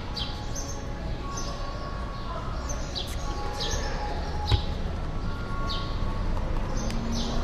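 Bird chirps, each a quick call falling in pitch, repeating about once a second over a steady murmur of people, with a single sharp knock about halfway through.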